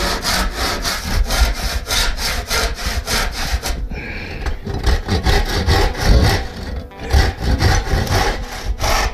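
Handsaw cutting a coigüe wood board, regular back-and-forth strokes with short pauses about four seconds in and near seven seconds. This is the cutting of a stave for a tumbadora (conga drum) along a traced line.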